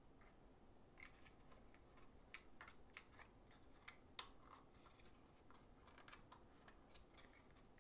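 Faint, scattered clicks and light taps of a small cardboard board-game piece being handled with the fingers, the loudest about four seconds in.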